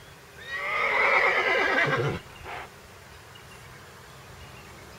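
A horse neighing: one long, quavering whinny of about two seconds, starting about half a second in, followed by a short, weaker sound.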